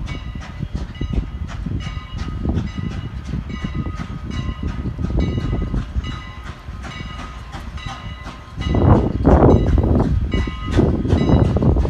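A train running close by: a rapid, even metallic clacking, about three strokes a second with a ringing tone, over a low rumble that gets much louder about nine seconds in.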